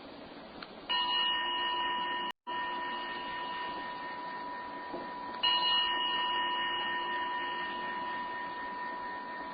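A meditation bell struck twice, about four and a half seconds apart, each clear ringing tone fading slowly: the bell marking the end of the practice period.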